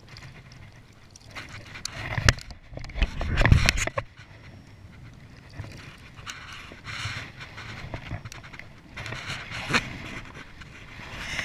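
Water poured from a plastic bottle over a spinning reel, splashing and dripping onto the lake surface beside the kayak. A louder burst of rustling and sharp knocks comes about two to four seconds in.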